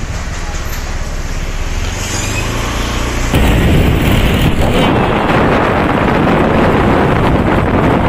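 Low, steady vehicle engine hum for about three seconds, then a sudden change to a louder, steady rush of wind on the microphone while moving along the road.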